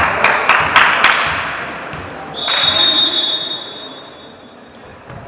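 A few sharp claps or smacks with hall noise in the first second, then a referee's whistle: one steady high blast of about a second, near the middle, the usual signal for the server to serve.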